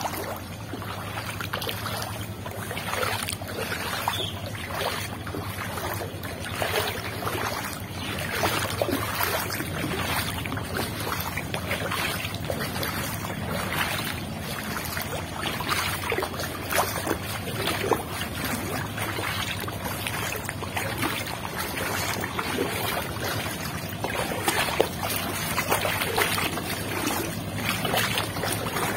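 Footsteps wading through shallow floodwater on a paved lane, with a splash and slosh at each step, over a steady low hum.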